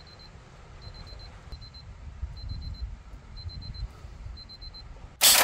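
Electronic alarm-clock beeping, repeating in groups of about four short high beeps roughly once a second over a low rumble. A loud, sudden burst of noise comes near the end.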